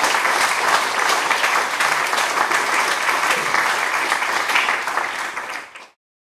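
Audience applauding: many hands clapping steadily, fading out and cutting off near the end.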